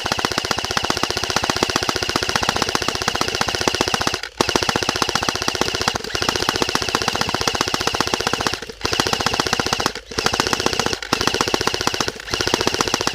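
Airsoft rifle firing on full auto: a very fast, rattling stream of shots in long bursts, broken by about six short pauses where the trigger is let go.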